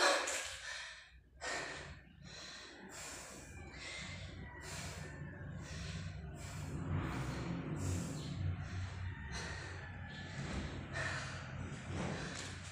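A man breathing hard after push-ups: quick, heavy, airy breaths about twice a second, over a low steady hum.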